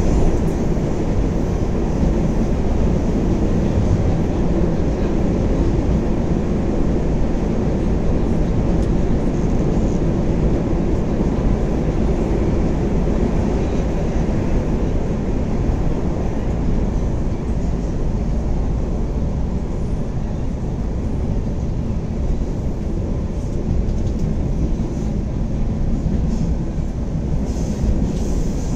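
Rio de Janeiro metro train running between stations, a steady low-pitched running noise of wheels on rail and traction motors heard from inside the passenger car.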